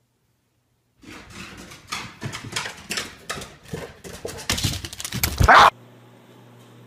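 A bulldog coming down a wooden staircase: a quick, irregular run of thuds and knocks from its steps, with the loudest one just before it stops about five and a half seconds in. A faint steady room hum follows.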